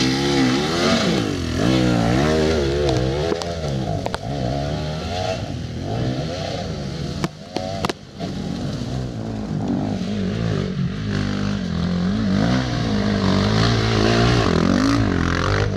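KTM two-stroke enduro motorcycle engine revving up and down hard under load on a steep, muddy climb, with a short drop in level a little past the middle.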